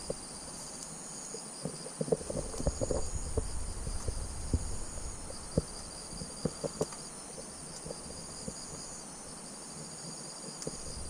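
Insects chirping steadily in the background, with scattered short clicks and knocks between about two and seven seconds in.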